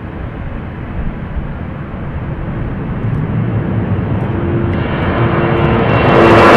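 Embraer E190 jet's turbofan engines at take-off power: a steady rumble that grows louder as the airliner rolls, lifts off and climbs out. A whining engine tone comes in near the end, as the sound grows louder and brighter.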